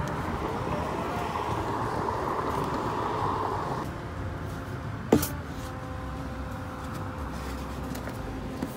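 Books sliding and being pulled from the shelf of a wooden Little Free Library box, with one sharp knock about five seconds in, over a steady outdoor rumble.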